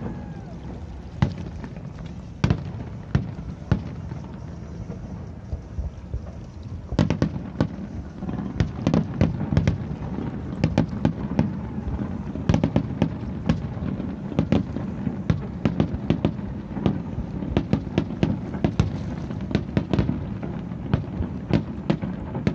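Fireworks display bursting: scattered sharp bangs for the first several seconds, then, about seven seconds in, a dense run of rapid cracks and booms over a steady low rumble.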